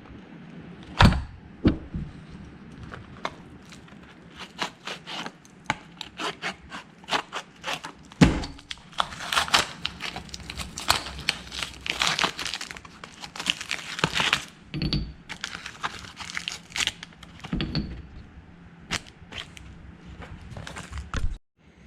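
Hands-on bench work on a brake caliper: scattered clicks and knocks of metal parts being handled and pressed together, with a denser run of scratchy rustling in the middle.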